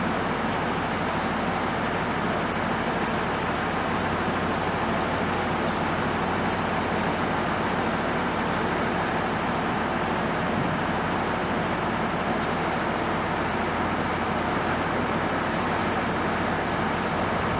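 Steady, unchanging engine noise with no knocks or breaks.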